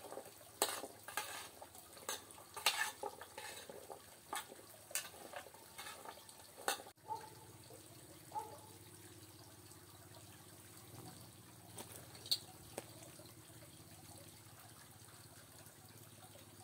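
A utensil clinking and scraping against cookware in irregular strikes, several a second, that stops abruptly about seven seconds in. After that there is only a quiet background with a few light clicks.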